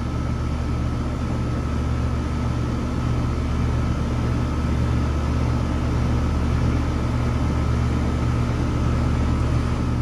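Two 2-ton outdoor air-conditioning condenser units running: a steady low hum from the compressors and condenser fans, with a faint high steady tone.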